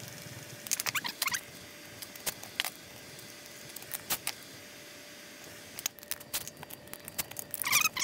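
Light metallic clicks and clinks in small scattered clusters as bolts are run down into an aluminium aircraft wheel with hand tools and a cordless screwdriver, busier near the end.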